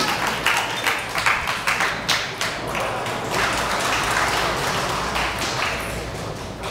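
Spectators clapping and applauding at the end of a table tennis rally. Dense claps that slowly thin out and get quieter toward the end.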